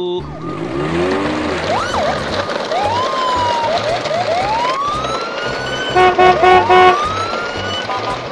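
Police siren sound effect rising in repeated whoops over a steady background rumble, with four short horn beeps about six seconds in.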